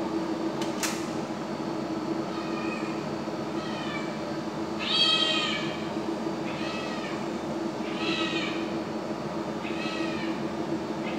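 A cat meowing over and over, about six calls that each rise and fall in pitch, the loudest about five seconds in, over a steady low hum. A sharp click sounds near the start.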